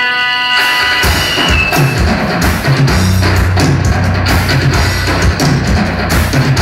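Loud music: a held chord gives way about a second in to a full band with drum kit and bass, which keeps a steady beat.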